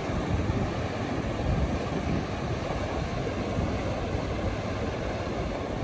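Steady rush of surf washing in around a farm tractor, with wind buffeting the microphone and the tractor's engine running underneath.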